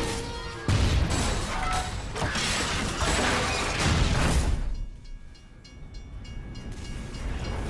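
Derailing passenger train cars grinding and scraping metal on metal along the track, with a sudden loud crash less than a second in. The noise drops to a quieter lull about five seconds in, then starts to build again.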